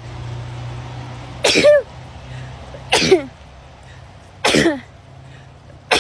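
A person sneezing in a rapid series of sun-triggered (photic) sneezes, a sharp sneeze about every second and a half, each trailing off in a falling voice; another begins right at the end. A low steady hum lies underneath.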